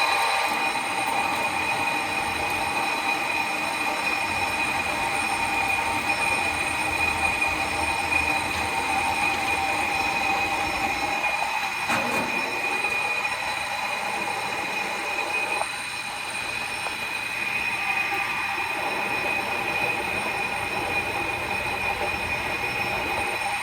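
1991 Mazak MK530 engine lathe running under power, its spindle and gearbox giving a steady high-pitched whine over a mechanical hum.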